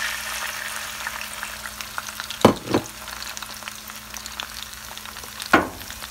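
Finely diced potatoes frying in hot oil in a pot: a steady sizzle. Two knocks close together about two and a half seconds in, and another near the end.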